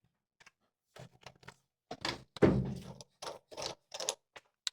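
A run of short clunks and knocks from hard tools and the ball being handled while a bowling ball drilling jig is set up, the loudest a heavy thunk about two and a half seconds in.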